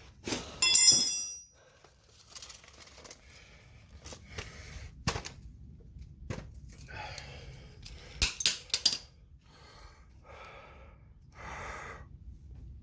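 Metal tools and parts clanking while sway bar end links are worked loose and removed, with a loud ringing metallic clank about half a second in and more clanks around five and eight seconds in. Softer rustles come in between.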